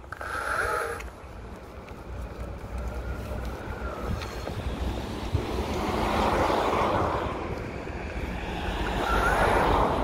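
Riding noise from an electric off-road skateboard: wind rushing over the microphone and a low rolling rumble, louder about six seconds in and again near the end, with short whining tones near the start and near the end.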